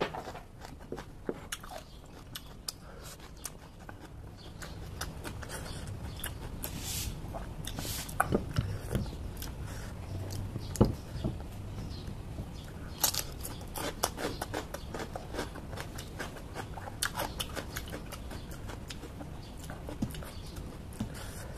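A person chewing crunchy raw vegetables close to the microphone: a run of small crisp clicks and crunches, with a few louder crunches scattered through, over a steady low hum.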